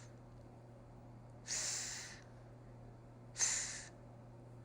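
A voice twice making the unvoiced 'th' sound of "three" as a phonics drill: each a short breathy hiss about half a second long, the two about two seconds apart.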